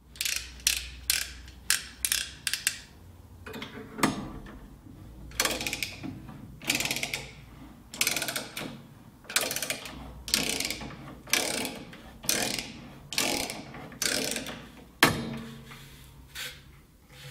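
Nerrad Tools 22 mm ratchet-action copper tube cutter being worked back and forth around a copper pipe. A quick run of ratchet clicks gives way to a steady series of rasping strokes, about every two-thirds of a second, as the cutter ratchets round the tube.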